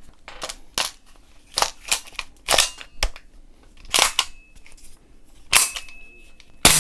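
A run of about ten sharp metallic clicks and snaps at uneven spacing, a few leaving a brief high ring, as the freshly assembled EHT BRN-180S airsoft rifle is loaded and its action worked in a function test.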